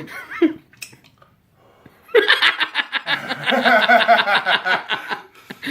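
A person laughing: a short voiced sound at the start, a quiet pause, then from about two seconds in a long run of quick laughs that stops shortly before the end.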